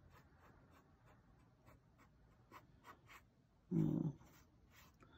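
Faint short strokes of a skinny paintbrush dabbing and scraping on paper, about three or four a second, laying texture into a painted t-shirt collar. A brief low hum from a voice stands out about three-quarters of the way through.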